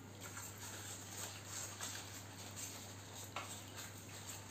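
Soft rustling of satin ribbon being pulled off its roll and handled against the bouquet's wrapping paper, with a small click about three and a half seconds in, over a steady low hum.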